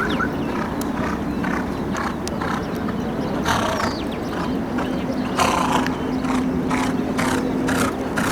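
Racehorse hoofbeats, a clatter of irregular strikes that comes closer together in the second half. A steady low hum joins about halfway through.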